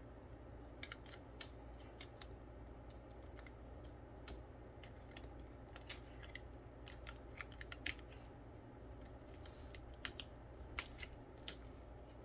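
Scissors snipping in a series of faint, irregular short clicks.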